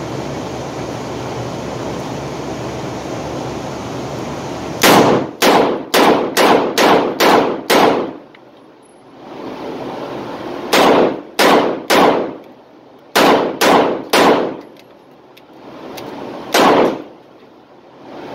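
.357 Magnum revolver fired in rapid strings, each shot ringing off the concrete walls of an indoor range. About seven quick shots come first, then after a short pause another string of about seven, then a single shot near the end. A steady hiss sits under the opening seconds.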